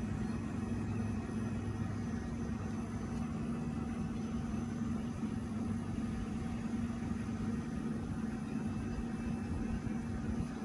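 A steady, low mechanical hum, unchanging in pitch.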